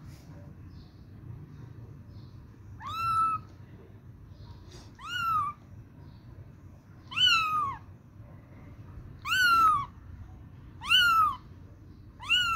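A very young kitten meowing, crying for its mother: six high-pitched meows about two seconds apart, each rising then falling in pitch, starting about three seconds in, the last cut off at the end.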